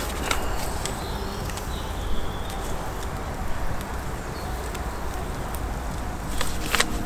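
Wood campfire crackling, with scattered sharp pops and two louder ones near the end, over a steady low rumble.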